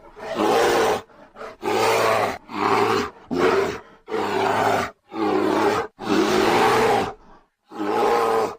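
A bear roaring again and again: about seven rough, growling roars, each under a second long, every one starting and stopping abruptly.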